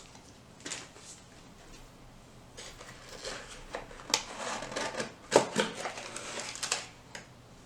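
Product packaging being handled: rustling and light knocks, busiest in the second half, over a low steady hum from a desktop PC.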